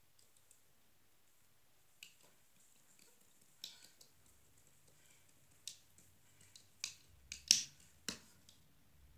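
Scattered small metallic clicks and scrapes of a screwdriver tightening the set screw of a connector on armored MC cable, more frequent and sharper in the second half.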